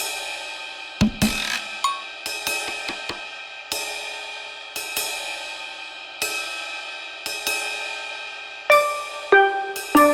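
Background music: struck keyboard notes over a drum kit, with cymbal crashes every second or so.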